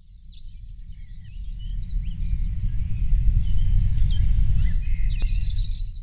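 Birds chirping and calling over a loud, steady low rumble. The ambience swells over the first few seconds and fades out at the end.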